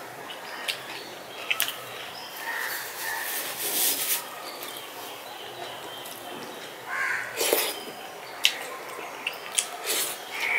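Eating by hand from a steel plate: wet squelching as fingers mix rice into lentil dal, with mouthfuls of chewing and sharp clicks of fingers against the plate.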